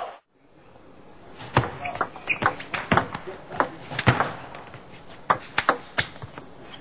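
Table tennis rally: the celluloid ball clicking sharply off bats and table in a quick, uneven run of two or three hits a second.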